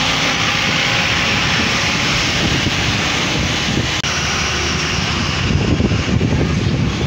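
Steady rush of wind and road noise from a moving bus, with a low engine rumble underneath, heard from a seat by the window.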